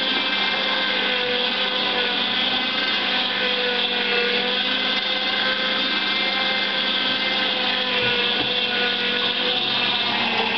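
Zelmer JP 1500 vertical slow juicer running, its motor and auger crushing pineapple pieces. It gives off a steady hum and whine at an even level throughout.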